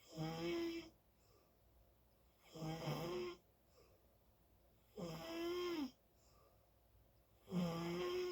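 Someone asleep snoring loudly in a slow, regular rhythm: four snores about two and a half seconds apart, each under a second long with a pitched, buzzing tone.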